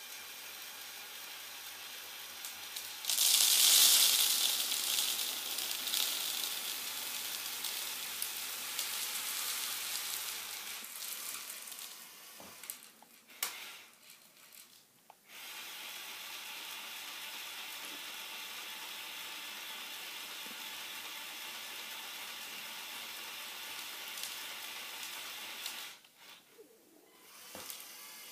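The electric motor of a Lego Technic dumper truck whirs as it tips the bed. About three seconds in, the load of small pellets pours out onto a wooden floor in a loud hissing rush that trails off over several seconds. After a short pause with a few clicks, the motor runs steadily again as the bed lowers, stops briefly near the end, then starts again.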